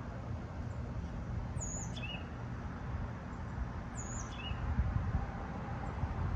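Steady whir of a 52-inch Hampton Bay Princeton II ceiling fan running, with a bird chirping twice: each a quick high call that drops in pitch.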